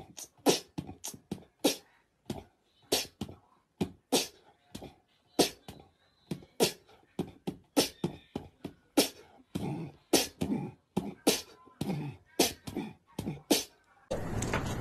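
A domestic cat hissing and spitting in short, sharp puffs, over and over at about two or three a second, in a defensive stand-off with its back arched. The puffs stop near the end, where a steady noise takes over.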